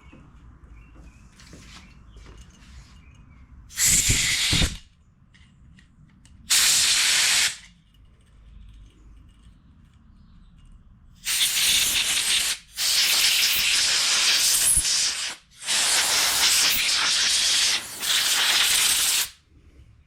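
Compressed air from an air-hose blow gun blasting through a small-engine carburetor's passages and jets, in five bursts of hiss: two short ones, then three long ones lasting two to three seconds each. It is blowing out cleaner and gummy stale-fuel residue from the carburetor of a Predator 2000 inverter generator.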